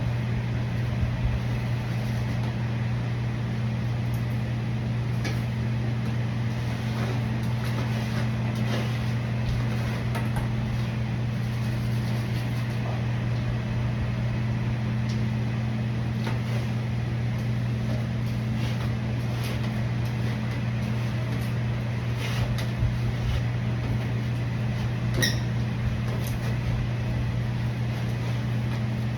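A steady, loud low machine hum with a few faint clicks and knocks over it, one slightly sharper near the end.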